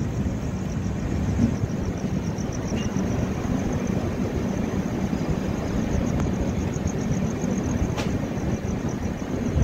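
Passenger train just starting to move slowly off after a halt, heard from a coach doorway: a steady low rumble and hum, with a faint high pulsing chirp above it and a single click near the end.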